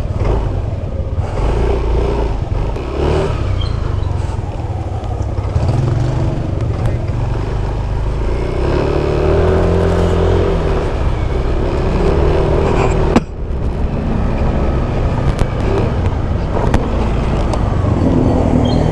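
Motor scooter's engine running as it is ridden slowly, heard from the handlebars with wind on the microphone. The sound breaks off suddenly and picks up again about thirteen seconds in.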